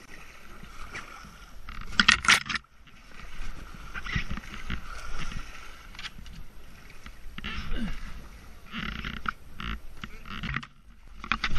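Kayak paddle strokes splashing in river water as the kayak is paddled in to a muddy bank, with knocks and scrapes against branches and the bank. The loudest sound is a cluster of sharp knocks about two seconds in.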